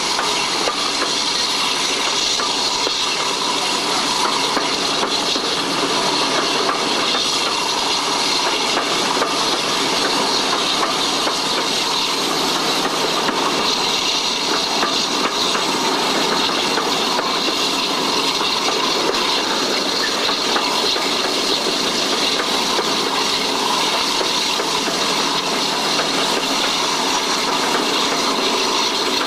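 Diesel-hauled passenger train running at speed, heard from an open carriage window: a steady rush of wind and running noise that does not let up.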